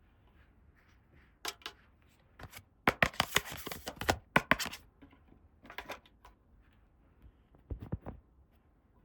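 Hands handling small plastic toy pieces and packaging: scattered sharp clicks and taps, with a dense burst of crinkling rustle about three seconds in lasting just over a second.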